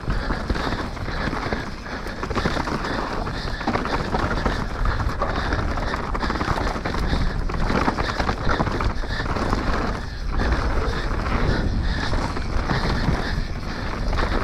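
Wind rushing over the microphone, mixed with the rattle and knocks of an enduro mountain bike riding fast down a rough trail.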